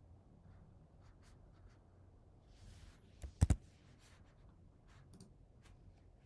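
Scattered faint clicks and taps at a computer as windows and slides are switched, with a brief soft rustle and a louder double click about three and a half seconds in.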